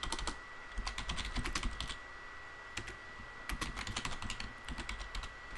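Typing on a computer keyboard: quick runs of key clicks, a short pause around the middle, then more keystrokes.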